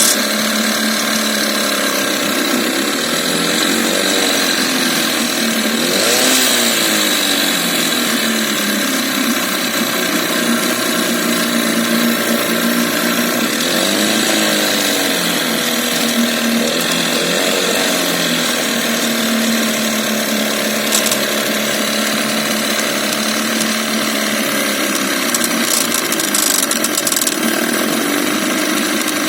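Veterok-12 two-cylinder two-stroke outboard motor running with a knock that has appeared during its testing, its speed rising and falling a few times.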